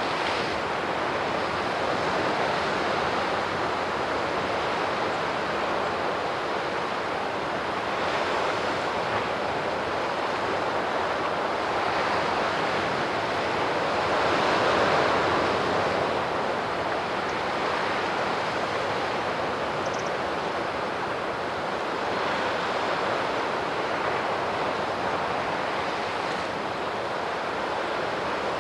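Sea waves washing onto the shore: a steady rush of surf that swells and eases every few seconds, loudest about halfway through.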